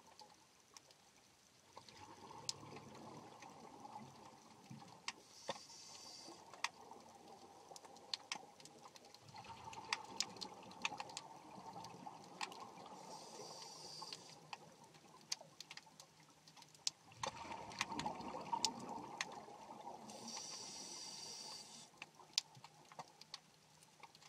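Underwater sound of a scuba diver breathing through a regulator: a hiss every seven or eight seconds, with bubbling exhalations between, the loudest about eighteen seconds in. Under it runs a steady scatter of sharp underwater clicks and crackles.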